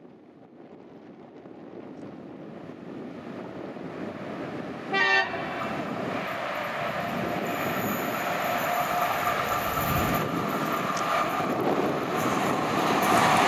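HŽ series 1142 electric locomotive hauling passenger coaches as it approaches, its rumble and rail noise growing steadily louder. One short horn blast sounds about five seconds in.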